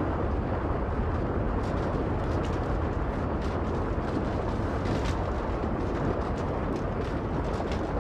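Storm-like sound effect of a powerful ocean current sweeping through the town: a steady, heavy rushing rumble with scattered sharp crackles throughout.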